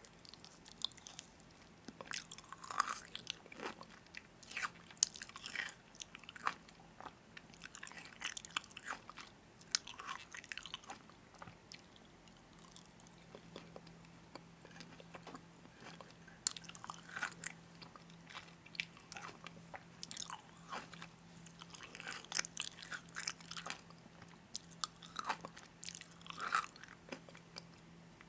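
Crunchy food being bitten and chewed close to the microphone: irregular crisp crunches and crackles, some louder than others, over a faint steady hum.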